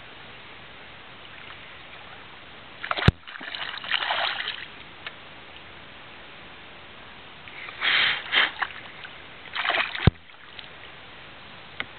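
Hooked smallmouth bass splashing at the water's surface beside the boat in three bursts, about three seconds in, about eight seconds in and just before ten seconds. A sharp knock comes at the start of the first burst and at the end of the last.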